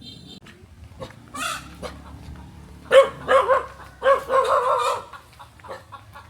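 Village dog barking several times in quick succession about three seconds in, with chickens squawking and clucking around it.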